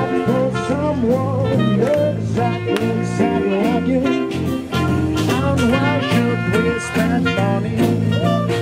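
Live small swing band playing an up-tempo jazz tune with a steady beat: acoustic guitar, ukulele and trumpet, with a man singing.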